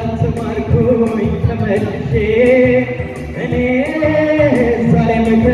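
A man singing a melody live into a microphone, amplified through a hall's loudspeakers, over band accompaniment. Some notes are held for about a second and bend in pitch.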